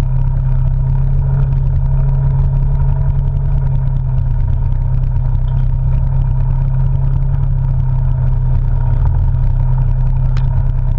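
Polaris RZR side-by-side's engine running at a steady, even pace as it drives along a dirt trail, a constant low drone heard from the open cab, with light rattles over the ground.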